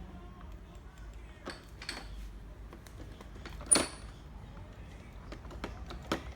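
Scattered clicks and knocks from handling a Xiaomi robot vacuum, the loudest a sharp click a little past halfway with a brief high ring after it.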